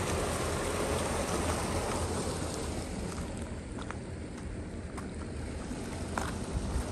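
Glacial meltwater stream rushing through a channel in the ice, a steady dense rush of water. After about three seconds it gives way to quieter wind noise on the microphone, with a couple of steps crunching on loose stones near the end.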